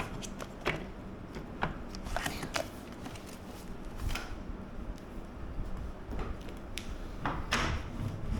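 Scattered light clicks, taps and short scrapes from gaming chair parts being handled and fitted during assembly, around the gas lift and tilt mechanism. The loudest scrapes come a little after two seconds, around four seconds and around seven and a half seconds in.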